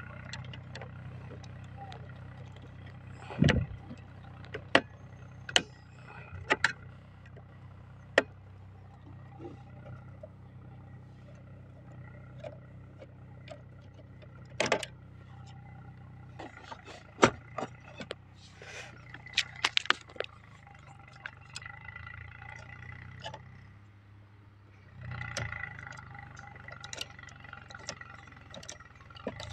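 Irregular sharp clicks and metal taps from a screwdriver and fingers working on a Larsen & Toubro MK1 contactor in a motor starter box, over a steady low hum.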